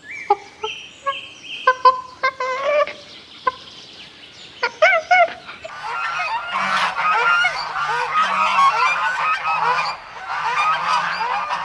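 A flock of domestic fowl calling, with a few separate calls at first, then many overlapping calls from about six seconds in.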